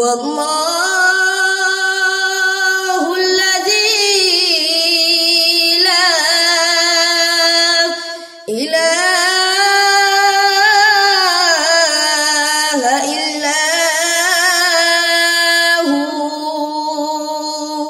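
A boy reciting the Quran in the melodic tilawat style, one high voice drawing out long, ornamented notes. The recitation runs as two long phrases, with a short breath about eight and a half seconds in.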